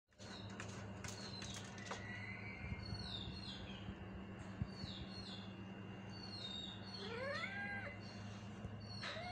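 A Persian cat meows once near the end, a short call that rises and falls in pitch, over a steady low hum and repeated faint high chirps.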